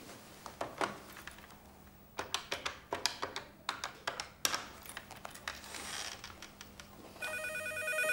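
A run of irregular clicks and taps as a telephone is handled and dialled, then a telephone ringing near the end, a trilling electronic ring of several stacked tones.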